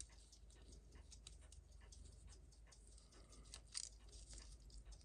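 Near silence with faint, irregular small clicks and taps of watchmaking tools on the parts of a Seiko 6105 watch movement being taken apart, over a low electrical hum.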